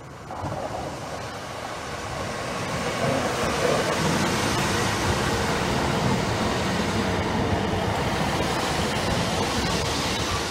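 Great Western Railway Class 150 diesel multiple unit arriving at the platform and running close past: its underfloor diesel engines and wheels on the rails make a steady rumble. The sound rises sharply about half a second in, builds over the next few seconds and then holds.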